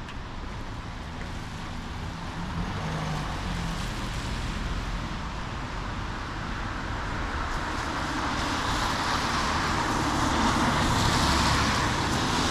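Street traffic: a vehicle approaching, its engine and tyre noise growing gradually louder.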